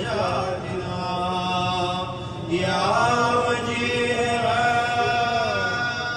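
Men's voices chanting a devotional prayer, in long held notes that slide up and down between phrases.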